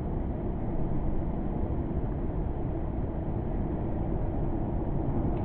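Steady, muffled rushing of surf and sea water, with no high tones and no distinct events.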